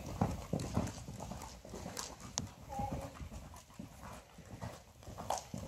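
Hoofbeats of a horse cantering on soft sand arena footing, a run of dull thuds that grow fainter through the middle as the horse moves away.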